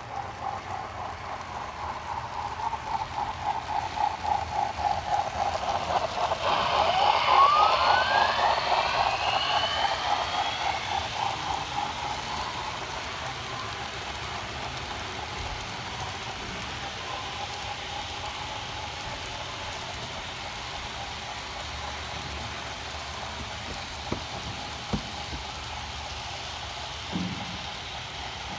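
Model train running past on its track: wheels clicking rhythmically over the rail joints at about three beats a second over a steady hum, loudest about seven seconds in as it passes closest, with a rising whine at that point. It then settles to a steady, quieter rolling sound with a couple of sharp clicks near the end.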